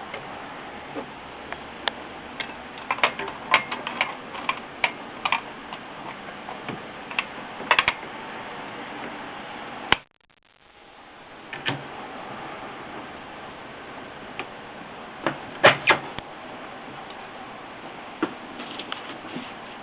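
Olivetti Lettera 22 manual portable typewriter being typed on: irregular sharp keystrokes, some single and some in quick clusters, with pauses between. The sound cuts out briefly about halfway through.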